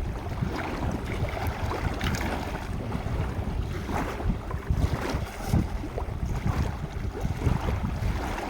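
Wind buffeting the microphone in uneven gusts, over the wash of river waves.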